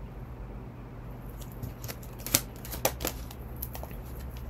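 A deck of oracle cards being shuffled by hand: a scatter of short card clicks and snaps through the middle, the sharpest two a little past halfway, over a low steady background hum.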